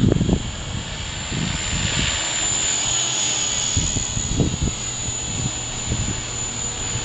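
Walkera V400D02 radio-controlled helicopter in flight, its motor and rotor giving a steady high whine.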